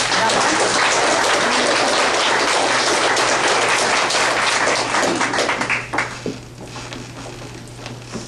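Audience applauding: dense, steady clapping that dies away about six seconds in.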